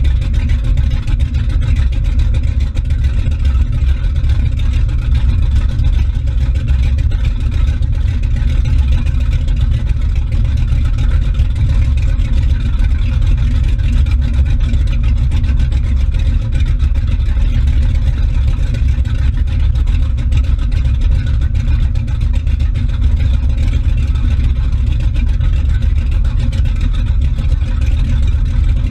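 Motorboat engine running steadily under way, a deep, even rumble, with the wake churning and splashing behind the stern. The engine is running smoothly.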